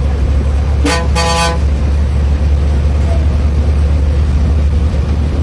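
Bus engine and road noise rumbling steadily in the cab, with two horn toots about a second in: a short one, then a longer one of about half a second.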